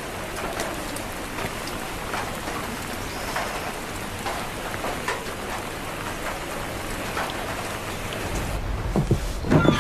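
Steady rain falling, an even hiss of drops. Near the end the rain stops and a low rumble and a few sharp knocks follow.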